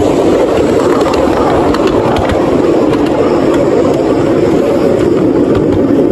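Steady, loud running noise of a narrow-gauge passenger train, heard from on board as it rolls along the line.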